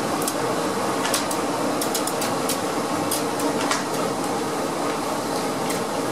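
Single-cylinder steam engine running steadily, a continuous mechanical clatter of its moving parts with irregular sharp metallic clicks.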